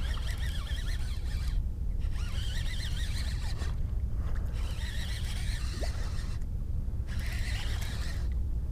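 A fishing reel cranked in spells while a hooked redfish is brought in: scratchy squeaking in runs of about a second and a half, with short pauses between them. Underneath is a steady low rumble of wind on the microphone.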